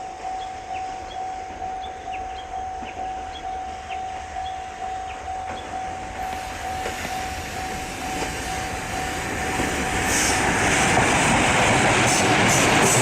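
Japanese level-crossing alarm bell ringing at about two strokes a second, while a JR Freight EF200 electric locomotive and its freight train draw near. From about two-thirds in, the train grows louder and passes, its wheels clacking over the rail joints and drowning out the bell.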